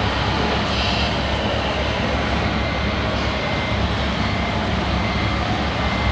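Radio-controlled model trucks and construction machines running: a steady low rumble, with a faint high whine that comes and goes.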